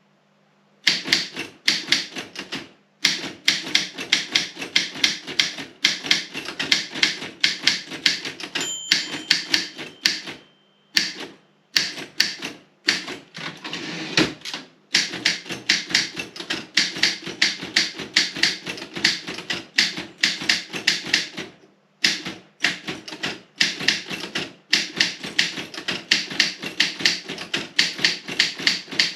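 Robotron 20 typewriter being typed on quickly: a fast, even run of key strikes, several a second, broken by a few short pauses.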